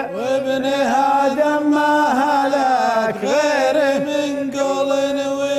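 Gulf Arabic shaylah: a male voice chanting a sliding, ornamented melodic line over a steady held low note.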